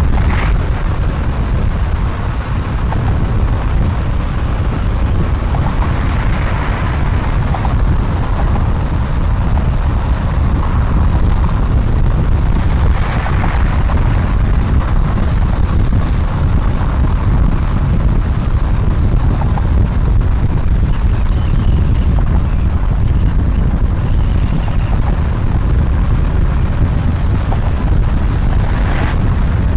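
Steady low rumble of road and wind noise from a car driving at speed, with wind buffeting the microphone. The hiss swells briefly a few times, as when other traffic passes.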